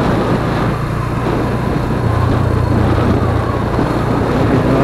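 Motorcycle engine running steadily while riding, with road noise.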